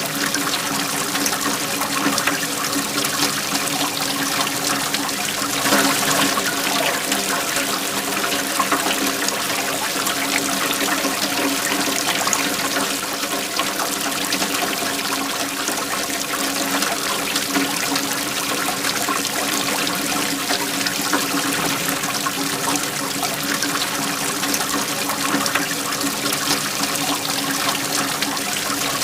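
Waterfall flowing steadily, with a brief louder moment about six seconds in.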